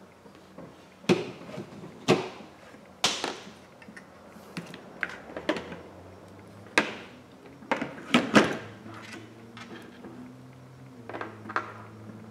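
Sharp taps and clicks of an iPhone display assembly and small parts being handled and set down on a workbench, about ten in all. A low steady hum comes in about three-quarters of the way through.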